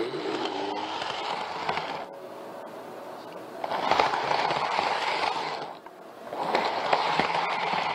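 N-gauge model train running along its track, heard from on board: a rattling rolling noise of wheels on rail with small clicks. It swells and eases off a few times.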